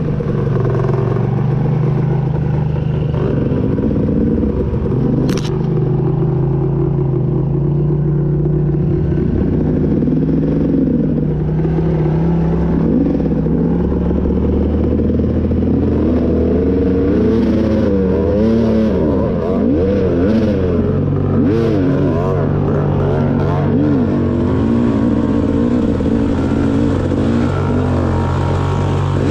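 2018 KTM 250 XC two-stroke dirt-bike engine running under way, its revs rising and falling with the throttle, with quicker up-and-down revving in the second half. A single sharp tick comes about five seconds in.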